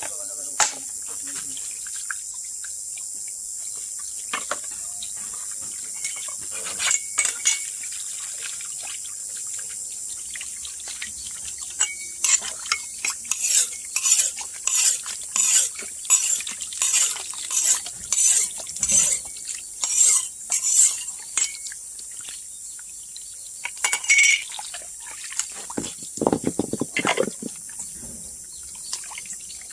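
A metal utensil scraping in short, regular strokes, about two a second for roughly ten seconds in the middle, over a steady chorus of insects such as crickets.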